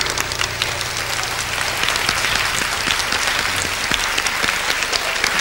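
Audience applauding, a dense steady clapping that grows slightly louder.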